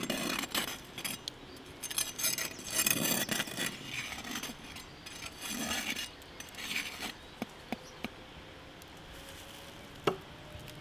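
A large knife cutting into the crisp roasted skin of a whole spit-roasted pig: crackly crunching in three strokes, then a few sharp clicks near the end.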